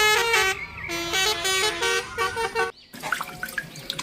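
Indonesian 'telolet' bus horn playing a quick tune of stepped notes, sometimes two notes at once, that cuts off abruptly about two and a half seconds in.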